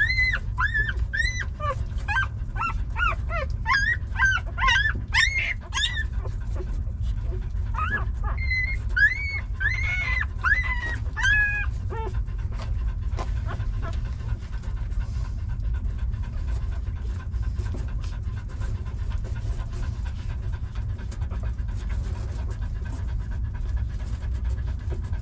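Newborn puppies squeaking and whining while they nurse, a rapid string of short, high-pitched, arching cries for about the first twelve seconds. After that the cries stop and the mother dog's panting carries on over a steady low rumble.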